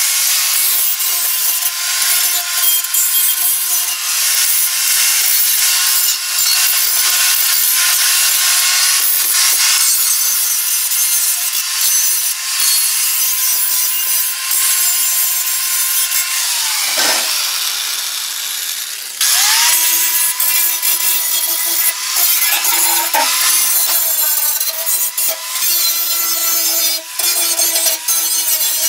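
Electric angle grinder with an abrasive disc grinding the jagged cut edges of thin steel fender sheet metal, its motor whining at a steady pitch over the grinding noise. About 17 seconds in the motor winds down, and a couple of seconds later it spins back up and grinding resumes.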